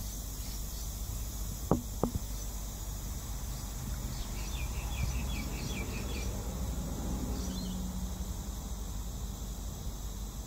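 Vacuum pump of an ABA Mediolanum casting machine running steadily under load, a low hum with a hiss over it. Two sharp clicks come just before 2 seconds in, and a short run of high chirps comes around the middle.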